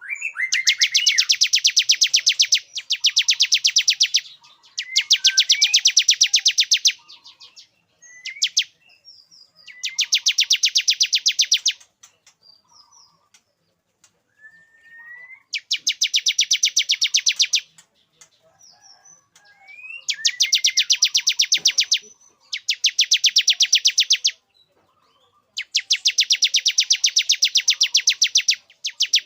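Male bar-winged prinia (ciblek) singing: loud trains of rapid, sharp repeated notes, each about two seconds long, broken by brief rising whistled notes in the pauses. This is the male's courtship song, used as a lure call to bring females into breeding condition.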